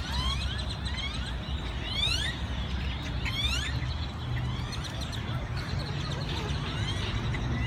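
A large flock of birds calling all at once: a dense chorus of many overlapping short rising chirps, over a low steady hum.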